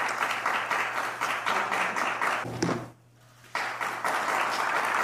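Applause from many people clapping steadily. It breaks off abruptly about three seconds in and starts again half a second later.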